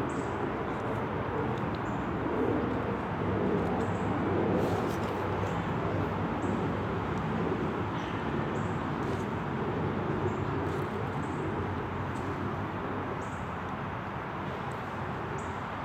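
Steady outdoor city noise, a low even hum of traffic, with scattered brief faint high chirps.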